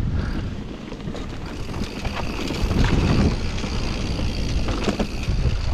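Wind buffeting the microphone while riding a mountain bike over a forest trail, with the bike rattling and knocking over rough ground.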